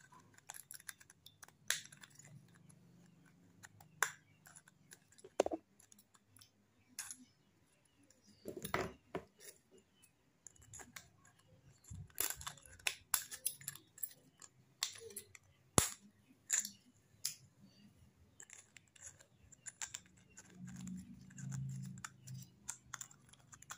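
Scissor blade tip scraping and clicking against the thin aluminium bottom of a drink can as a small punched hole is reamed wider, in irregular sharp clicks and short scrapes.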